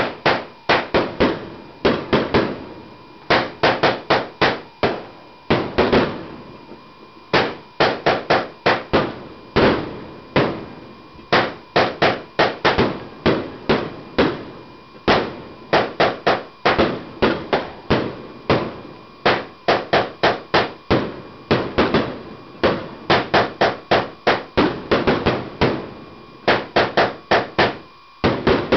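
Broekhoff 'Clouds of Thunder' firework cake firing shot after shot: loud, sharp bangs in quick clusters of two to five, with short pauses between the clusters.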